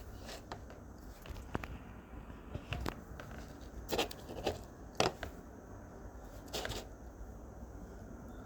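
Irregular light rustling and clicking, with louder rustles about four, five and six and a half seconds in.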